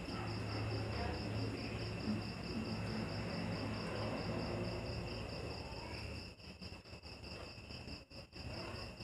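Crickets chirping in a steady, evenly pulsing high trill, with a low rumble underneath that fades about six seconds in.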